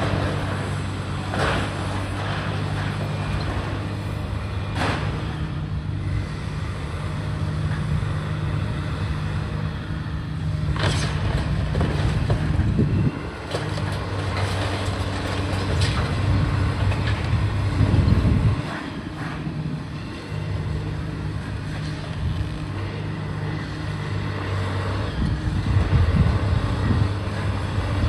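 Heavy diesel demolition machinery running with a steady low engine hum that swells under load at times, with a few sharp knocks and crunches.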